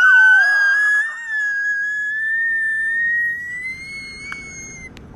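A long, high-pitched scream held for about five seconds, rising slightly in pitch and growing fainter near the end.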